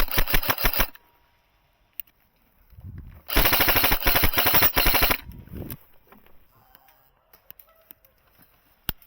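Airsoft gun firing on full auto: a short burst of about a second, then a longer burst of about two and a half seconds, each a fast even rattle of shots.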